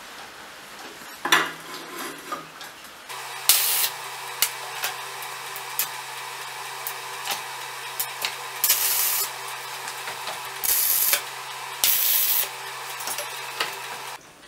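Stick (arc) welding on steel plate: the arc strikes about three seconds in and crackles and sizzles steadily over the low hum of the welder, with several louder stretches, until it stops just before the end. A single sharp knock comes about a second in, before the arc is struck.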